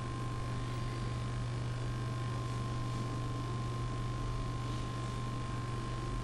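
A steady low electrical-sounding hum with a thin, fixed higher tone above it and a wash of hiss, unchanging throughout.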